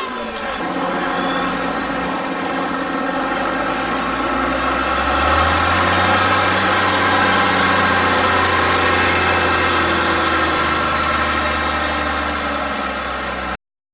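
Massey Ferguson 265 tractor's four-cylinder Perkins diesel working hard under load while pulling a weight-transfer sled, with a thin high whine climbing in pitch over the first few seconds. About five seconds in, the engine note grows louder and a deep drone joins it; the sound cuts off suddenly near the end.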